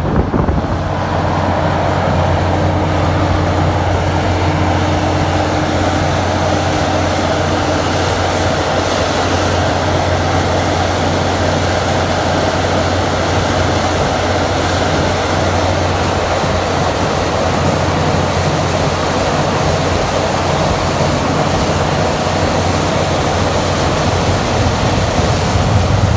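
Water-well drilling rig in a blowout: the rig's engine holds a steady low hum under the rushing of air, mud and water blowing out of the borehole. The rush grows a little louder near the end.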